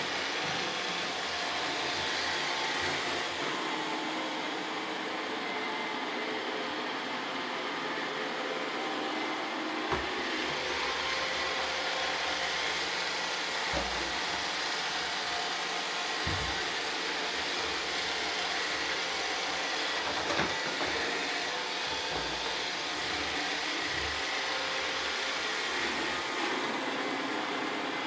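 Roomba robot vacuums running steadily, a constant whirring hiss of suction motors and brushes, with a few soft low thumps scattered through it.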